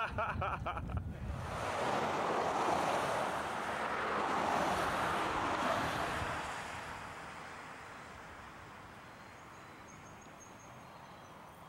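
A vehicle passing by on the street: a rushing sound that swells over a couple of seconds and then fades away, leaving a faint steady hiss.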